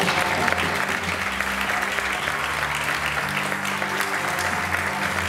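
Audience applauding, a dense patter of many hands clapping, over background music with steady held low notes.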